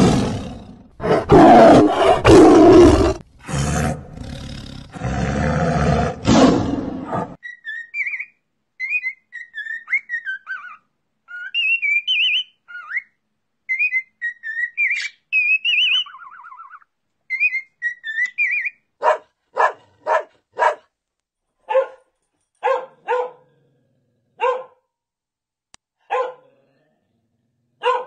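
A tiger roaring in loud, deep calls for about the first seven seconds. Then budgerigars chirping and warbling in high, quick notes. Then a dog barking in short single barks, first in a quick run and then spaced a second or more apart.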